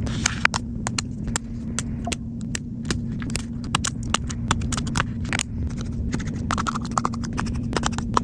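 Small repair tools clicking and tapping irregularly against an iPhone as it is opened up, over a steady low hum.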